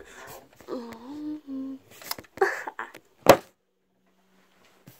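A girl humming a few short notes, her pitch sliding up between them, followed about three seconds in by a single sharp knock.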